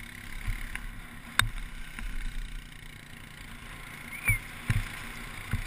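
Skis sliding fast over grass while towed on a rope, a steady rushing rumble broken by several sharp knocks as the skis and camera jolt over bumps.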